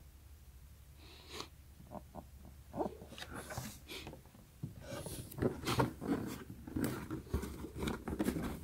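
Hands handling a cardboard shoebox: scattered rubs, taps and scrapes against the box, busier and louder in the second half.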